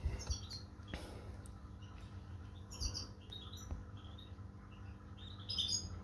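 Young lovebirds chirping in short, high calls: a cluster about half a second in, more around three to four seconds, and the loudest burst near the end.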